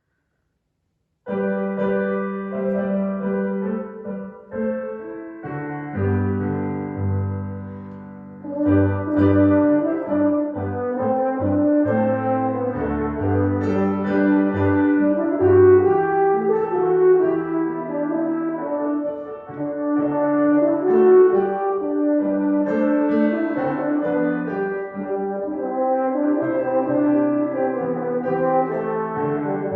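Instrumental music: a slow melody in held horn-like notes over piano chords, starting about a second in.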